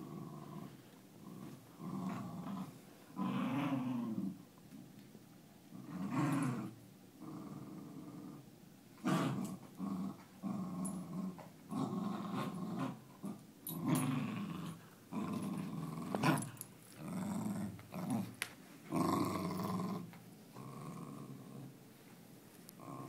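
Dogs play-growling while tugging on a rope toy, in a string of growls a second or two long with short gaps between them, and a few sharp clicks.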